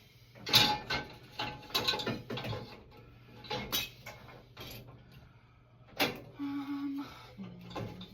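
Dishes and a pot being handled and set into the rack of a small countertop dishwasher: a string of uneven clinks and knocks of metal and crockery, the sharpest about half a second in and again about six seconds in.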